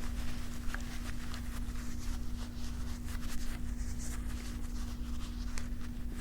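Ruger 10/22 rifle being handled: faint rubbing and scraping with a few light clicks, sharpest about a second in and near the end, over a steady low hum.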